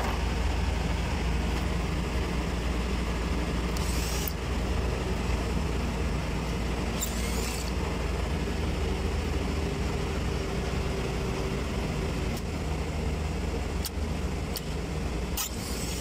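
Steady low hum of a running package-type air conditioning unit. A few short rasping noises and clicks come over it.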